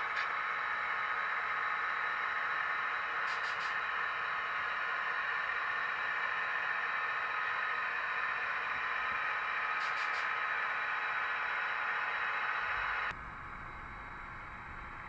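Steady hiss with a few faint clicks. About thirteen seconds in it cuts abruptly to a quieter, low rumble: an HO-scale model train rolling along the track, heard from a camera riding on the train.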